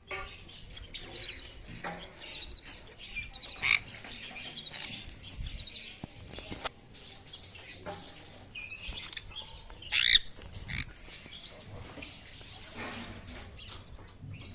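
Pair of lovebirds chattering: rapid high chirps and short twittering trills, broken by a few sharp, louder squawks, the loudest about ten seconds in.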